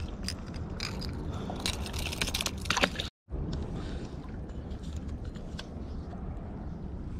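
Steady low rumble of wind and surf at a rocky shoreline, with scattered clicks and scrapes of fishing tackle and the catch being handled. The sound cuts out completely for an instant about three seconds in.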